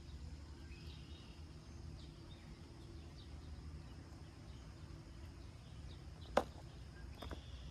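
Outdoor ambience: a steady low rumble with faint bird chirps over it, and a single sharp click a little over six seconds in, followed by a couple of lighter clicks.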